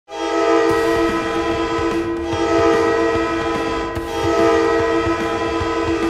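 The San Diego Gulls' hockey goal horn, an arena air horn, sounding one long steady blast that starts sharply and wavers slightly about every two seconds.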